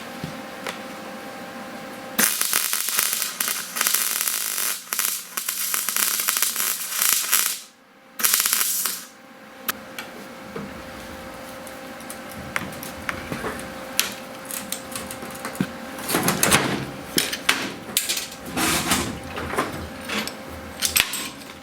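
Electric arc welding: a dense, crackling arc runs for about five seconds from about two seconds in, then a short second bead just after. Shorter crackling bursts and clicks come near the end.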